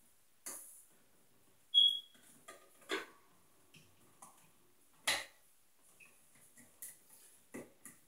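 Scattered light clicks, taps and small metal clinks as a light switch and its wires are handled and pushed into a plastic electrical wall box, with one short ringing ping about two seconds in.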